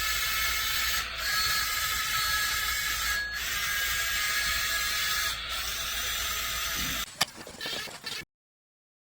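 Small electric motors and gears of a toy RC wheel loader running with a steady whir, with brief dips every couple of seconds. The whir stops about seven seconds in, followed by a single click.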